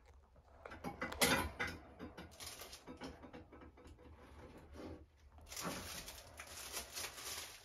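Small household items knocking, clinking and rattling against each other and a wooden shelf as they are rummaged through by hand, with a denser rustling and scraping stretch in the last couple of seconds.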